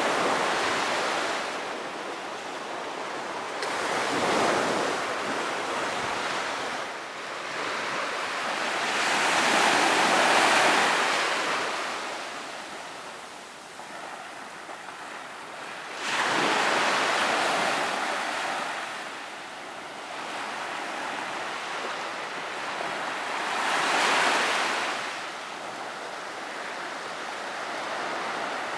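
Indian Ocean surf washing onto a beach, each wave swelling and then fading, about five surges with the loudest about ten seconds in and a sharp rise about sixteen seconds in.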